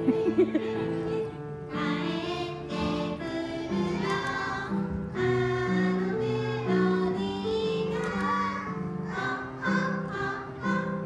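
A chorus of young children singing a song in unison over instrumental accompaniment, phrase by phrase.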